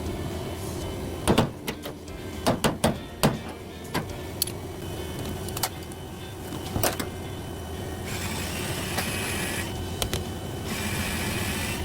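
Steady low mechanical hum with scattered clicks and knocks of hands and tools at work. Near the end come two bursts of hiss, each about a second and a half long.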